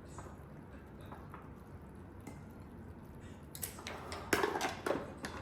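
Kitchen handling sounds: quiet at first, then a quick run of clinks and scrapes of utensils and dishes in the last couple of seconds.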